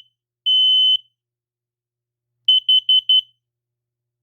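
Kidde KN-COSM-IBACA combination smoke and carbon monoxide alarm sounding its test cycle on one high tone: the last long beep of its three-beep smoke pattern, a pause of about a second and a half, then four short quick beeps of its carbon monoxide pattern.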